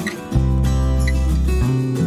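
Background music: acoustic guitar strumming.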